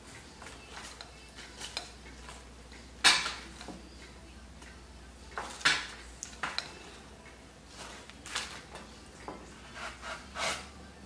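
Light knocks and clinks of hard objects against glass as artificial roses are handled and set into a vase on a glass table. Two sharper knocks come about three seconds in and just before six seconds in, with smaller taps scattered between.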